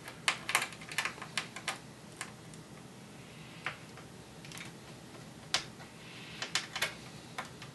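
Light, sharp clicks and taps of small screws and a screwdriver against the plastic underside of a Dell Latitude 3540 laptop as screws are taken out. A quick run of about eight clicks comes in the first two seconds, then single clicks follow every second or so.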